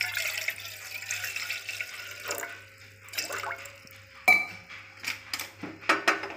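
Water pouring in a stream into a stainless steel saucepan for about two seconds, then a handful of sharp clinks and knocks, the loudest about four seconds in.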